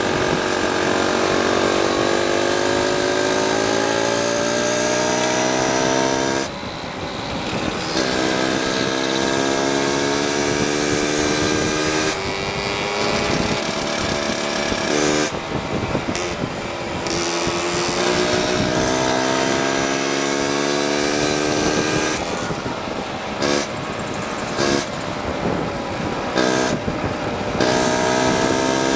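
Small vintage Piaggio two-stroke scooter engine running under way, its pitch climbing in long rising glides as it accelerates, with the throttle closed briefly several times (about 6 seconds in, around 12 and 15 seconds, and in quick dips over the last several seconds) before it pulls up again.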